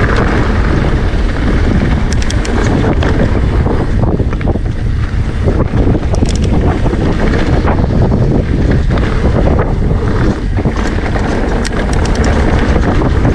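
Mountain bike descending a gravel and dirt trail: wind buffeting the camera microphone over the rumble of knobby tyres on loose ground, with scattered sharp clicks and rattles of the bike over stones.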